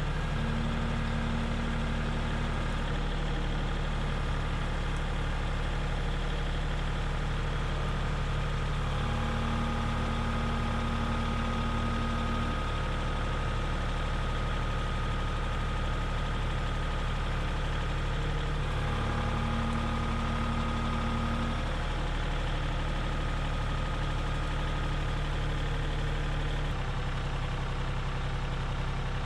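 A steady engine running at idle, with a low, even hum and a few higher tones that come and go.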